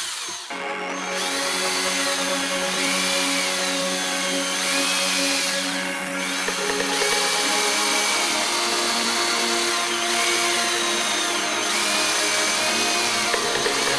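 Power drill with a thin bit running steadily while boring a wire hole into a maple wooden lure body. Its whine dips and rises in pitch every second or two.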